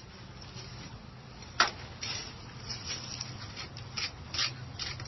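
A sharp click about a second and a half in, followed by a scatter of light ticks and rustles over a low steady hum.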